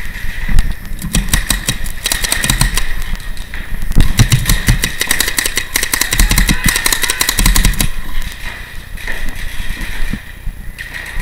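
Paintball markers firing, rapid strings of sharp pops several shots a second, dying away near the end.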